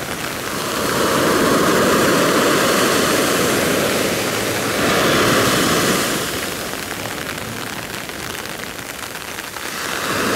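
Storm surf and rain on a dark beach: a dense rushing noise that swells in surges, loudest about one to four seconds in and again around five seconds, then eases and builds again near the end.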